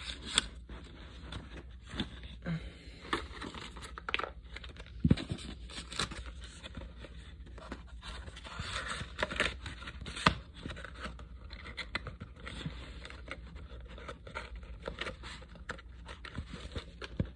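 Irregular clicks, knocks and rustling of items being handled and packed back into a case.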